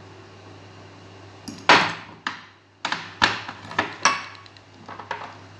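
Metal spoon clinking against a glass spice jar and glass mixing bowl while black pepper is spooned onto raw chicken: about seven sharp clinks starting about a second and a half in, the first the loudest, over a low steady hum.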